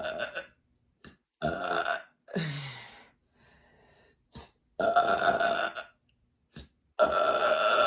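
A woman belching again and again, her stomach full of fizzy sparkling water: a string of burps, one with a falling pitch, the longer ones about a second each, the last running on near the end.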